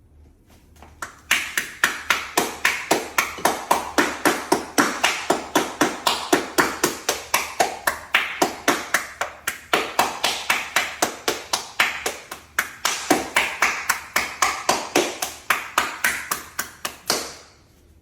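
A woman's hands clapping on their own, a round of applause for herself, at a steady pace of about four claps a second. It starts about a second in and stops shortly before the end.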